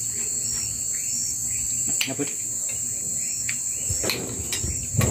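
A steady high-pitched chorus of night insects, with a few sharp clinks of a metal spoon against a china plate.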